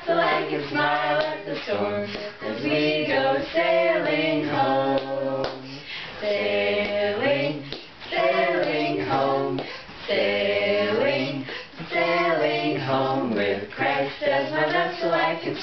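A small group of women singing a children's sailing song together unaccompanied, with a small child's voice joining in, in steady sung phrases with short breaths between lines.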